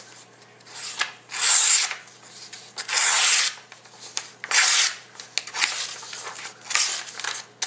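Kershaw Junkyard Dog II knife blade slicing through the edge of a sheet of paper in a sharpness test: a series of short rasping hisses, about half a second each, one per cutting stroke, roughly five strokes.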